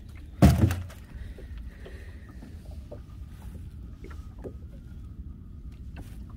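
Steady low rumble of wind and water around a small fishing boat at sea, with one short, loud thump about half a second in and a few light knocks after it.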